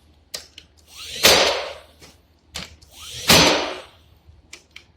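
Craftsman cordless 16-gauge finish nailer driving nails, three shots about two seconds apart. Each is a brief rising whir that ends in the drive, with light clicks between shots.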